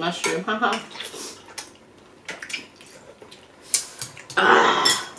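Eating noises over hot pot: chopsticks clicking against bowls, then a loud slurp of noodles and broth lasting under a second, about four and a half seconds in.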